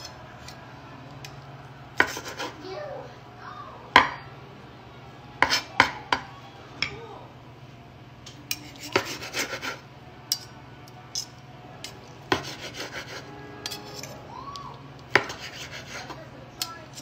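Kitchen knife and fork cutting cooked chicken: irregular clicks and short scrapes of metal against the cutting surface, over a steady low hum.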